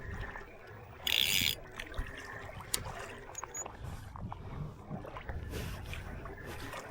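Small handling clicks and knocks on a fishing kayak over low water noise, with a short loud hiss about a second in and a fainter one later.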